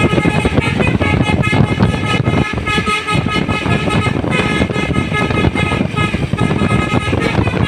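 Tour bus's Basuri telolet horn playing a multi-note tune, several tones sounding at once and changing in steps, over the loud running of the bus's engine.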